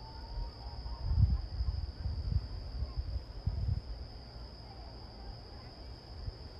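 Insects chirring in one steady, unbroken high tone, under low rumbles of wind or handling on the microphone that come and go, loudest about a second in.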